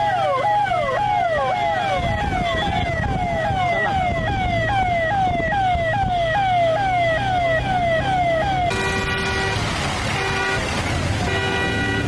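Vehicle siren in fast yelp mode, its pitch sweeping up and down about twice a second over low traffic noise. About two-thirds of the way through it cuts off and three steady horn blasts follow.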